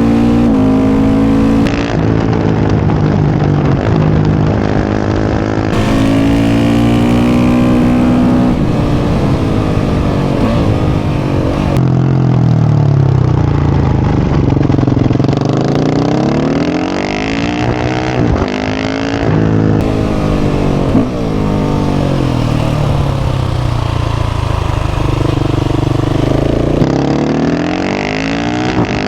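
KTM 690 SMC R's single-cylinder engine running through a full Leo Vince exhaust under riding load. The engine note repeatedly rises and falls as the bike accelerates, shifts and slows, with a long dip and climb back up around the middle.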